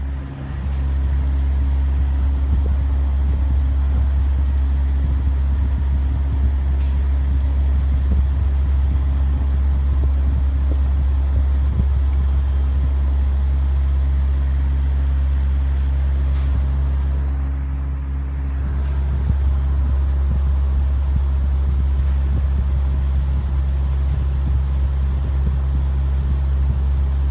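Industrial exhaust fan behind a louvered shutter running with a loud, steady low drone and hum. The level dips briefly about two-thirds of the way in.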